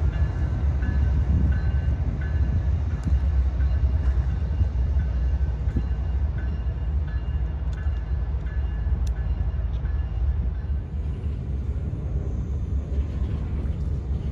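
CSX diesel locomotives running as they move away along the track, a steady low rumble. A faint high note repeats about every half second through the first half.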